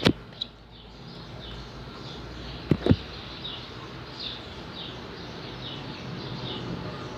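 Slime being squeezed and worked by hand, giving a few sharp clicks and pops: two near the start and two in quick succession about three seconds in. A short high chirp repeats about once a second in the background throughout.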